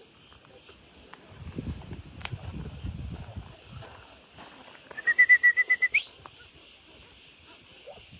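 Steady high insect buzz. About five seconds in, a bird gives a quick trill of about eight evenly spaced notes ending in an upward sweep; a brief low rumble comes earlier.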